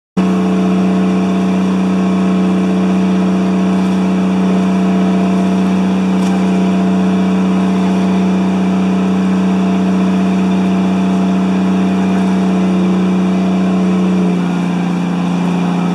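Pump boat (motorised outrigger bangka) engine running steadily under way, heard on board as a loud, even hum. About 14 seconds in its pitch drops slightly and it eases a little quieter.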